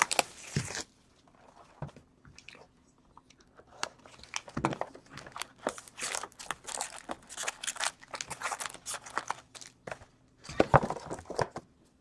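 Wrapping crinkling and tearing as a sealed box of hockey trading-card packs is opened, in irregular crackles that thicken after a quieter first few seconds.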